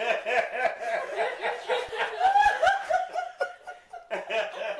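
A group of people laughing at a punchline, many overlapping 'ha-ha' voices, briefly dipping near the end and then thinning out.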